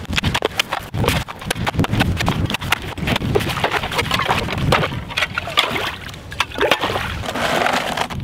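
Steel blade of a Cold Steel shovel, used as an ice chisel, chopping into lake ice with quick repeated strikes, then splashing through the slushy ice chips and water in the freshly opened hole.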